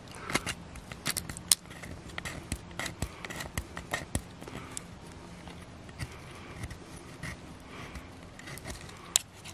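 Knife blade scraping and shaving a stick of resinous pine fatwood: a string of short, irregular scrapes and clicks as fine shavings are cut for fire tinder.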